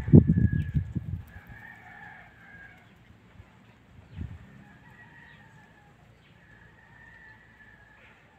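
Gusty low rumble of wind buffeting the microphone for the first second or so, then faint distant chicken calls over a quiet background.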